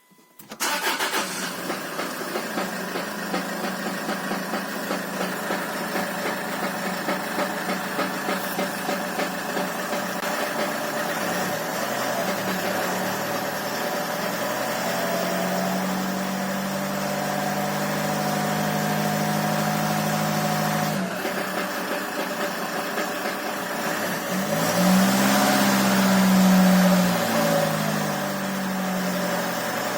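Land Rover Freelander 2 diesel engine catching about half a second in, then running with a persistent rapid knock. It is held at higher revs for several seconds, drops back about 21 s in, and is revved again briefly near the end. The owner has found the valves, rockers, injectors, compression and timing in order with no fault codes, so the knock's cause is undiagnosed.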